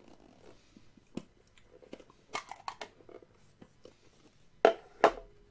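Hands handling Pokémon booster packs and their mini-tin: scattered small crinkles and clicks, then two sharp knocks about half a second apart near the end.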